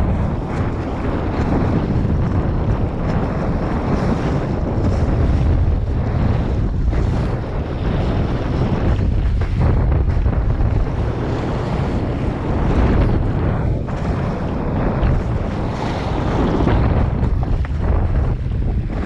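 Strong wind buffeting the microphone of a camera on a Scow Moth sailing dinghy under way, over water rushing and splashing along the hull. A steady loud rumble, with the hiss of spray surging and easing every few seconds.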